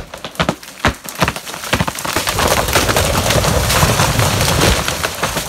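Huge white pine going down: loud cracking and popping wood, several sharp cracks in the first two seconds. Then a long crash with a deep rumble as the trunk and branches smash onto a camper trailer and the ground.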